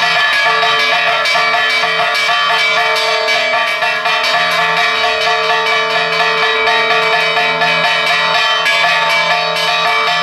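Church bells rung in a fast peal: clapper strikes follow in quick succession over the bells' steady ringing.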